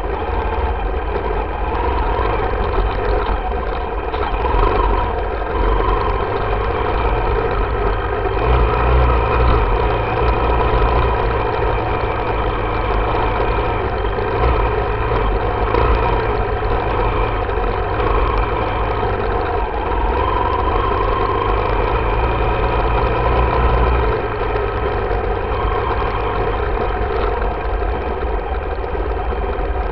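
Yamaha YZ dirt bike engine running steadily at part throttle while riding a trail, with a heavy low rumble underneath. It swells a little about nine seconds in and again near the end.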